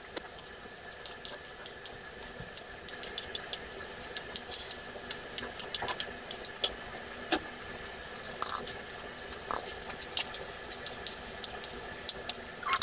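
Wooden spatula scraping and knocking against a metal wok as penne, broccoli and chicken are tossed, in irregular clicks and clacks over a steady mechanical hum.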